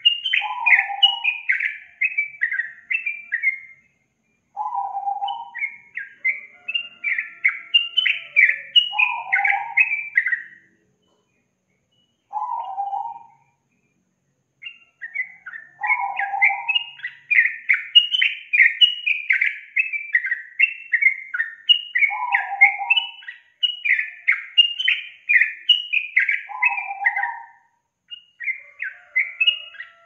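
Yellow-vented bulbul (trucukan) singing: long phrases of rapid, bubbling high chirps with lower notes mixed in, broken by short pauses a few times.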